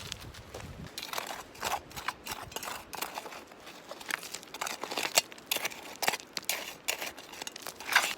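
Irregular crunching and crinkling handling sounds: a quick, uneven run of clicks and rustles, with a sharper snap near the end.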